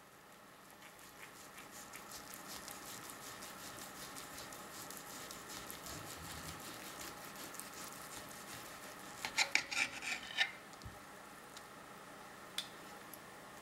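A knife sawing back and forth through a roast pork loin held with a fork, in fast, fine scraping strokes. About nine seconds in, a quick run of sharp clicks as the metal knife and fork knock against the serving platter, then a single click near the end.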